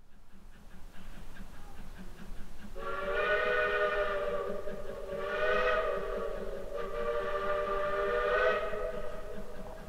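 Steam chime whistle of Baldwin steam locomotive Polson Logging Co. #70 blowing a chord of several notes, starting about three seconds in and held for about six seconds. Its upper notes swell three times, long, short and long, over a steady lower chord.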